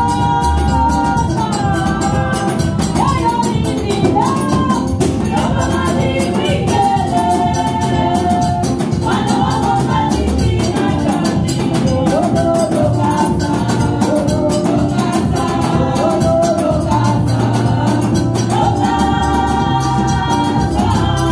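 Women's gospel group singing a praise song together into microphones over an amplified band with a steady, danceable beat.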